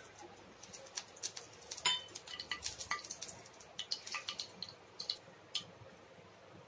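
Cooking oil in a hot kadai crackling and popping just after being poured in: scattered sharp pops for about five seconds. About two seconds in there is one louder, ringing metallic clink.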